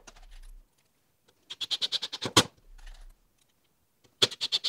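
A power driver sinking screws into wooden boards: two short runs of rapid clicks, about twelve a second. The first ends in a sharp knock about two and a half seconds in, and the second starts near the end.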